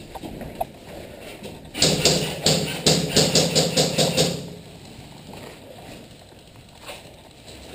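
Airsoft gunfire: a rapid run of about ten sharp shots, four to five a second, starting about two seconds in and lasting about two and a half seconds.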